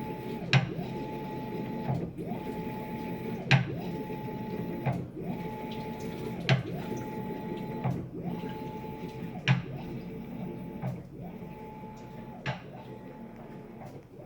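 Maytag MVWB765FC top-load washer agitating: the motor's hum drops and comes back about every second and a half as the agitator reverses, with a loud, sharp click about every three seconds. A service technician called the click the clutch cycling on and off, normal for this model; the owner takes it for a loose drive gear slapping.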